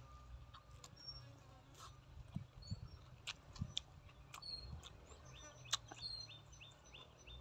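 Close-up chewing of food, with several sharp wet clicks and crunches from the mouth. Small birds chirp in the background, with a quick run of about six repeated high notes near the end.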